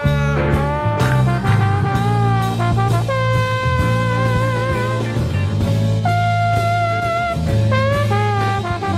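Instrumental passage of a live band recording with no singing: a horn section holds long notes with vibrato, moving to new chords every second or two, over bass and drums.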